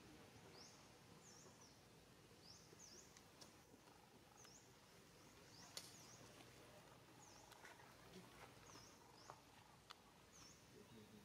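Near silence: faint outdoor ambience with soft high chirps repeating about once a second, and a faint click or two.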